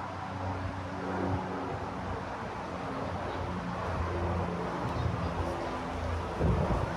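Street traffic: vehicle engines running and passing with a low hum, over a general city noise. A brief louder low bump comes near the end.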